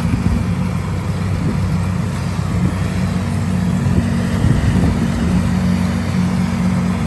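Vehicle engine running steadily, a constant low drone with no change in speed.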